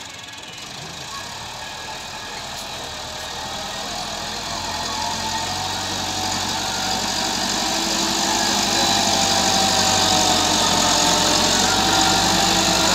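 Massey Ferguson 385 tractor's diesel engine working under load as it pushes sand with its front blade, growing steadily louder over the first several seconds as it comes closer.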